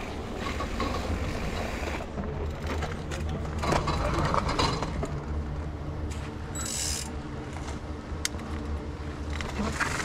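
Mountain bike freehub ticking as the bike coasts and rolls to a stop on a dirt trail, with tyre rumble and small rattles and clicks from the bike.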